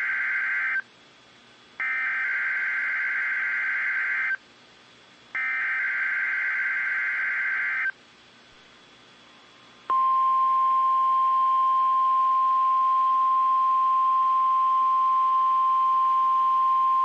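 NOAA Weather Radio SAME alert header: three buzzy digital data bursts about a second apart, the first already under way. About ten seconds in, the steady 1050 Hz warning alarm tone starts and holds, marking the station's required weekly test of its public warning system.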